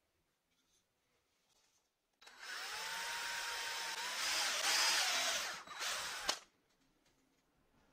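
Cordless drill with a twist bit boring a hole into a wooden broom-handle piece. About two seconds in, the motor whine rises and then holds steady while the bit cuts for about four seconds, then stops suddenly.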